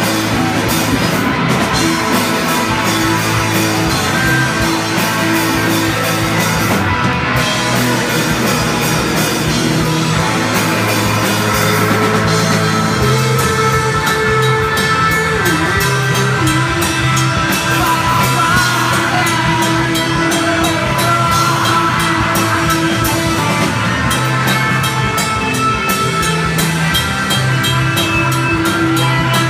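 Live rock band playing loud: a drum kit pounding a dense beat under electric guitars.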